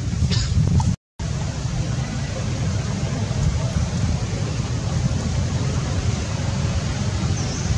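Steady low outdoor rumble, like wind on the microphone, with no animal calls; it drops out to silence for a moment about a second in, at an edit, then carries on unchanged.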